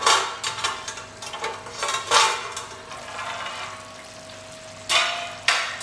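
Steel lid lifted off a kadhai with metal clatter, then chicken curry simmering gently over a low flame, with two sharp knocks near the end.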